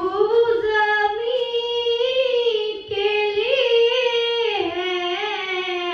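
A girl singing a naat solo, unaccompanied, into a microphone. She holds long wavering, ornamented notes and takes a short breath about three seconds in.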